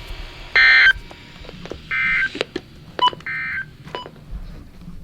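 Emergency Alert System end-of-message data bursts on a NOAA Weather Radio broadcast: three short buzzy bursts of data tones about a second and a half apart, the first loudest, marking the end of the flash flood warning. A few faint clicks fall between the bursts.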